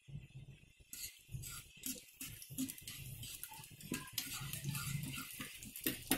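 Garlic frying in hot oil in a small iron tadka pan, with a steel spoon stirring it: an irregular crackling sizzle that picks up about a second in.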